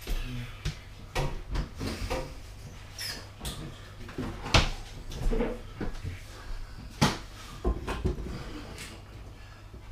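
Irregular knocks, clunks and clatters of things being handled and bumped, with the sharpest knocks about four and a half and seven seconds in.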